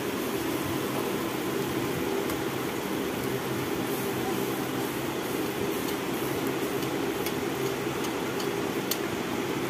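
Mango malpoa batter frying in hot oil in a wok: a steady sizzle of bubbling oil over a low hum, with a couple of light clicks from the spatula against the pan.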